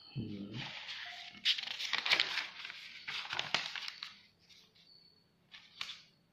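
Paper rustling and crinkling as notebook pages are turned and handled, for about three and a half seconds, then a few shorter, softer rustles.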